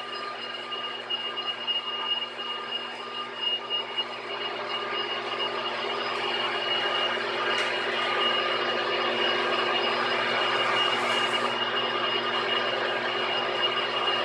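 Machine tool running, with a steady high whine over a grinding hiss that grows louder about six seconds in.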